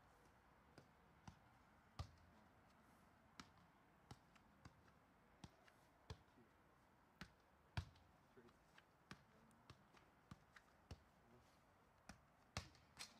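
Soccer ball being kicked back and forth and juggled: a scattered, irregular run of short thuds as the ball meets foot and chest, the loudest about eight seconds in.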